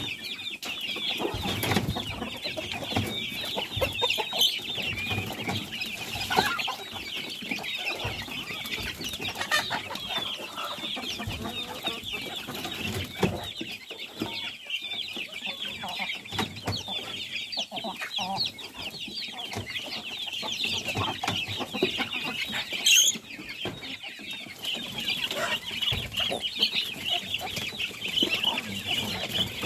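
A flock of young chickens feeding alongside ducks, giving many overlapping high peeps and clucks without a break. There is one sharp knock about three-quarters of the way through.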